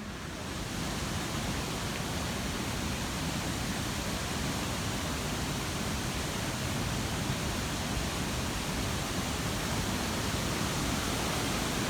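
Steady rush of cascading mountain water, growing slightly louder.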